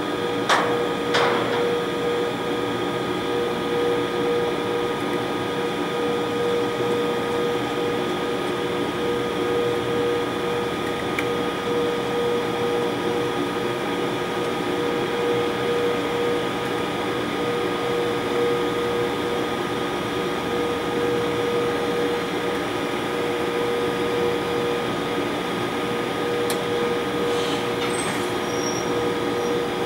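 British Rail Class 92 electric locomotive with its auxiliary machinery running: a steady whirring hum carrying one strong even tone. Two short sharp clicks come about half a second and a second in.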